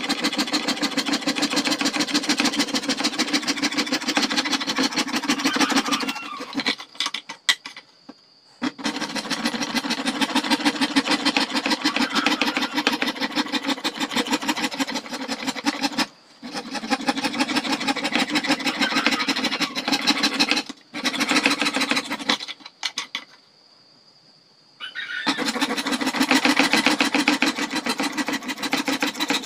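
Fine-toothed saw blade cutting thin PVC sheet with rapid rasping strokes. The sawing stops briefly four times and then picks up again.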